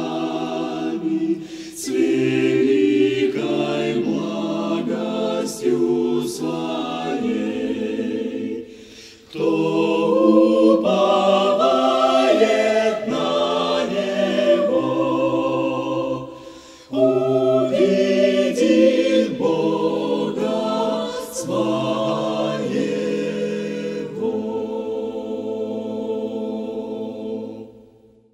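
Choir singing in long phrases, with two short breaths between them, fading out near the end.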